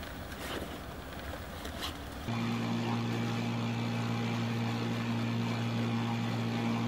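Soft rustling with a few light clicks, then, about two seconds in, a Honda 30 hp four-stroke outboard motor comes in abruptly, running steadily at cruising speed with an even low hum.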